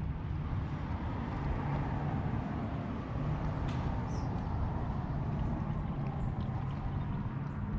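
Sea-Doo FishPro personal watercraft's engine running steadily, a low even hum with water noise over it.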